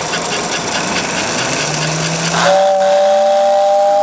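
Dense crowd din of a busy exhibition hall. About halfway through it gives way abruptly to a steady two-note tone, a chord that holds without wavering.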